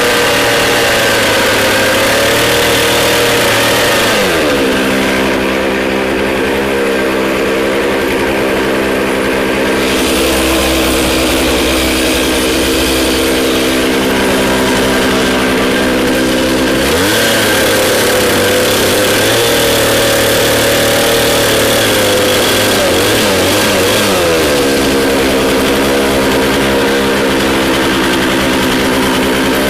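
Small gasoline engine running steadily, speeding up twice and settling back down each time: a rise at the start that drops about four seconds in, then another rise past the middle that falls away again near the end.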